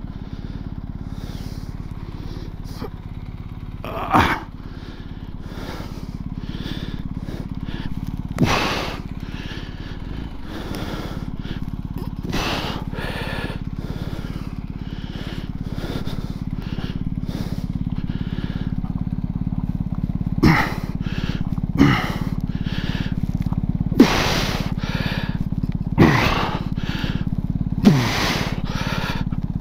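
BMW R 1250 GS Adventure's boxer-twin engine, fitted with an Akrapovic exhaust, idling steadily and growing a little louder toward the end. About seven short, sharp sounds, each dropping quickly in pitch, stand out above it, most of them in the last third.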